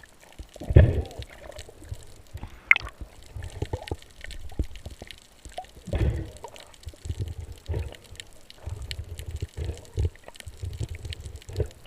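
Water sloshing and gurgling in irregular surges, with scattered knocks.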